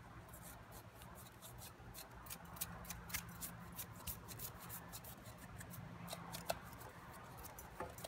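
Small hand brush sweeping metal chips off a milling-machine vise: a run of faint, quick scratchy strokes with chips ticking on the steel.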